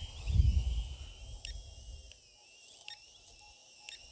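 Wind buffeting the microphone, loudest in the first second and a half, over a faint high whine that wavers in pitch: the Syma X25PRO quadcopter's small brushed motors spinning at low throttle on the ground before lift-off.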